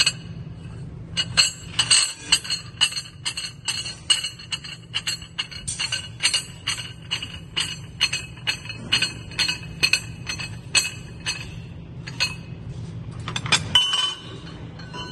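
Steel slitter blades and spacer rings clinking against each other and the arbor shaft as they are worked along and slid off by hand: a run of sharp metallic clinks with a bright ring, about three a second, thinning out and ending in a short cluster near the end.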